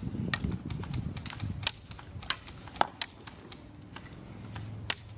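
Airsoft guns firing single shots: about a dozen sharp, irregular pops. Under them runs a low rumble of movement.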